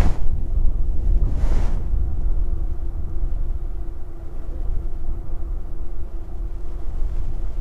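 Wind buffeting the microphone: a steady low rumble, with two brief gusty swishes in the first two seconds and a faint steady hum underneath.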